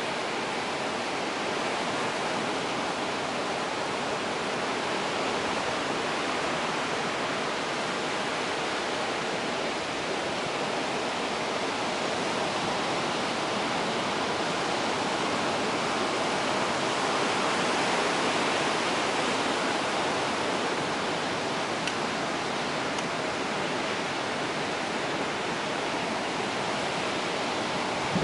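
Ocean surf breaking and washing over the shore: a steady rushing hiss that swells slightly a little past the middle.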